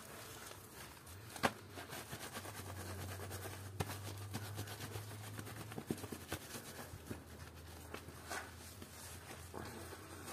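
Soap-soaked plush toy squeezed and kneaded by hand in thick suds: wet squelching and a constant fine crackle of bursting foam bubbles, with a few sharper squishes. A low steady hum runs underneath from about a second in.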